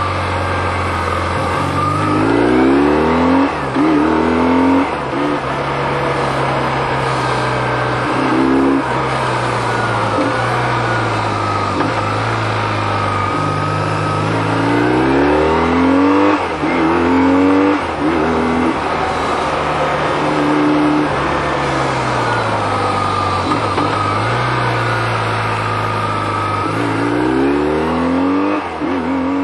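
BMW R 1150 GS flat-twin boxer engine under way on a winding descent. The revs climb several times as the throttle is opened and drop back in between.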